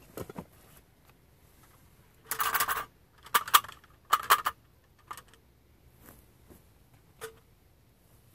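Camping gear being handled and packed into a waterproof roll-top duffel bag: short bursts of stiff bag material and plastic rustling and knocking, the loudest three coming between about two and four and a half seconds in, with a few lighter clicks either side.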